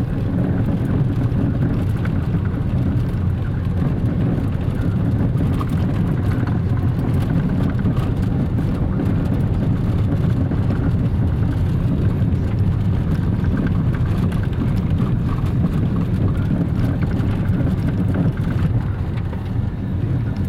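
Car driving on an unpaved gravel road, heard from inside the cabin: a steady low rumble of tyres on loose gravel and the engine, with a light crackle of stones under the wheels.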